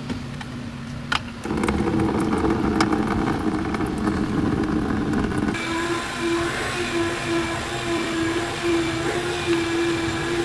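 A motor vehicle engine running steadily, louder from about a second and a half in, with its tone changing about halfway through to a regular pulsing hum.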